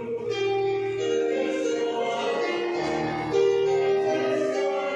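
Background music: an instrumental tune of held melodic notes that step from one pitch to another.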